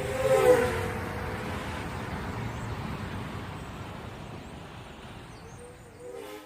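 A vehicle passing close, loudest about half a second in as its pitch drops, then its noise fading away over several seconds. The sound cuts off suddenly at the end.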